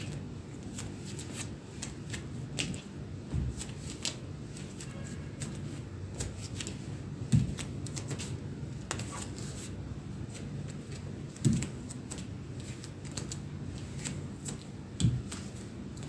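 Bare feet walking slowly on a wooden parquet floor: soft steps with many light crisp clicks and rustles, and a heavier low thump from a footfall about every four seconds.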